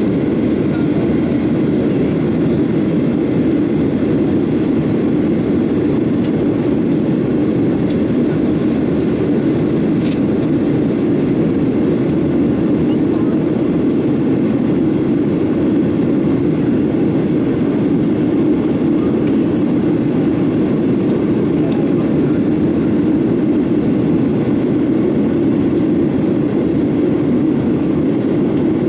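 Steady cabin noise inside a Boeing 737-800 in flight, from the CFM56 jet engines and the air rushing past the fuselage. It holds an even level, heaviest in the low-middle range.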